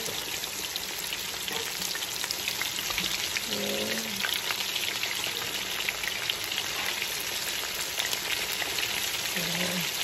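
Breaded fish fillets deep-frying in hot oil in a cast iron skillet: a steady sizzle with constant crackling and popping.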